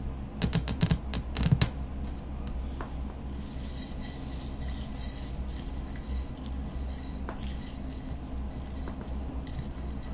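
A metal spatula clinking against a clear bowl several times in quick succession in the first second and a half, then scraping and stirring sequins through clear slime, with soft rustling and a few faint clicks.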